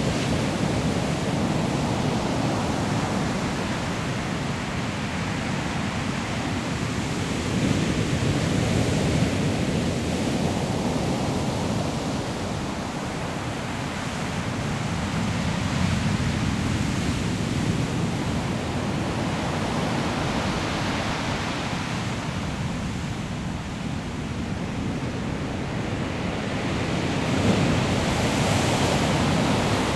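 Sea waves breaking on a pebble shore, a dense rushing surf that swells and eases in surges every several seconds, with wind buffeting the microphone.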